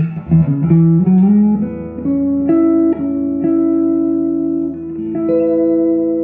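Silvertone 1413 electric guitar with a Kay pancake pickup played through a valve amplifier with spring reverb into a 1957 Jensen P12Q 12-inch speaker: a few picked notes with a bend upward about a second in, then notes and chords left to ring out, played fairly clean.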